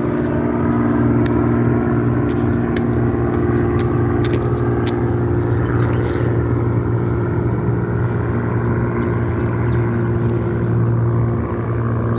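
An engine running steadily, a low even drone with no change in pitch. Faint bird chirps come in near the end.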